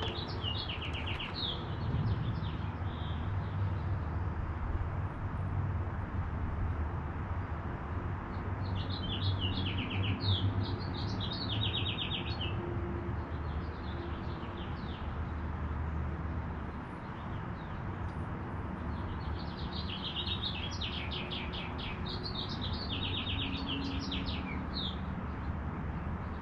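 A songbird singing three warbling phrases with quick trills, about ten seconds apart, over a steady low rumble.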